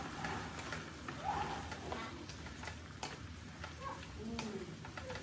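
Stir-frying noodles and greens in a metal wok: a wooden spatula scrapes and taps against the pan, giving scattered clicks and scrapes over the frying noise.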